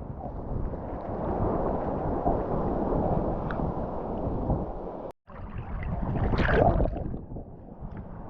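Wind buffeting the microphone over the wash of surf on a beach, breaking off for an instant about five seconds in.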